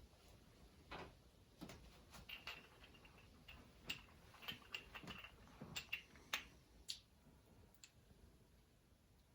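Light, irregular metallic clicks and taps of small transmission parts (gears, washers, snap rings) being handled and slid onto a gearbox shaft, some clicks with a short metallic ring. It goes quiet for a stretch near the end.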